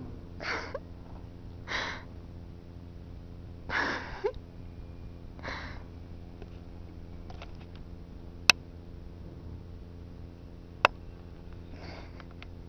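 Short breathy sniffs, four spaced a second or two apart in the first six seconds and one more near the end, with two sharp clicks in between.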